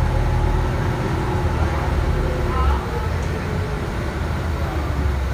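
Nova LFS CNG city bus running, heard from inside the cabin: a steady low rumble with a faint whine running over it. A slight drop in level comes a little under three seconds in.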